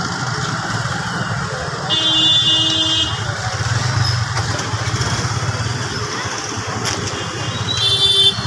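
Busy street traffic of motorcycles and scooters, engines running as a steady low rumble. A vehicle horn honks for about a second about two seconds in, and a shorter, higher-pitched horn sounds near the end.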